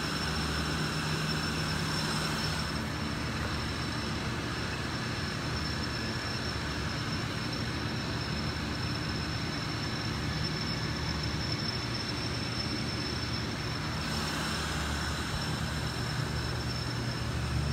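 Steady mechanical hum and hiss with a thin, high-pitched whine over it.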